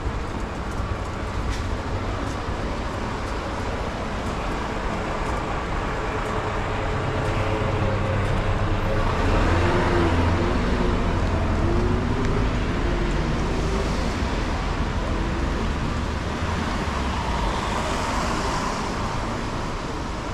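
City street traffic: a steady rumble of passing cars, with vehicles swelling louder and fading away about halfway through and again near the end.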